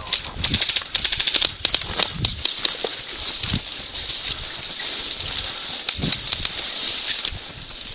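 Footsteps of a person walking through brush and dry ground cover, with crackling and rustling underfoot and a soft thud at each step.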